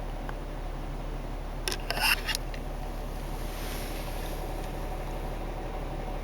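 Jeep Cherokee XJ engine idling steadily, heard from inside the cabin. The owner asks whether a noise that appeared after an oil pump replacement is a rod knock or a lifter tick. A brief clatter of sharp clicks comes about two seconds in.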